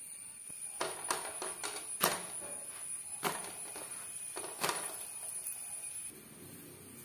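A series of light clicks and knocks, about eight in the first five seconds, the loudest about two seconds in, over a faint steady high-pitched whine that drops away about six seconds in.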